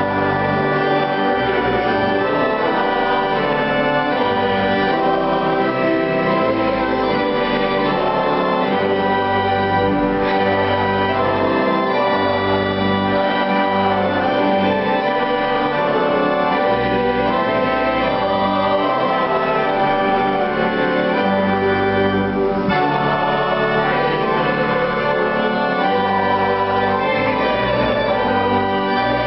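Violin and upright piano playing together, the violin holding long sustained notes over the piano's accompaniment.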